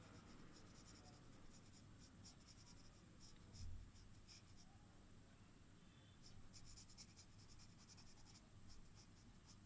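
Faint scratching of strokes being drawn on paper, coming in quick clusters of short scratches. There is one soft low thump a little over a third of the way in.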